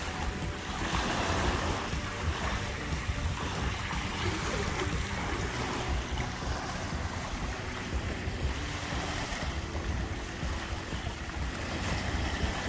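Small waves washing and lapping on a sandy beach, with wind buffeting the microphone as a fluttering low rumble.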